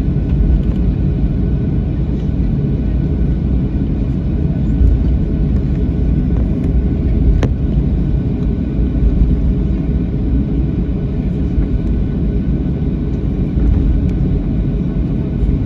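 Boeing 737-800's CFM56-7B engines and runway rumble heard from inside the cabin over the wing during the takeoff roll: a loud, steady low roar with faint steady engine tones. There is a single sharp click about seven and a half seconds in.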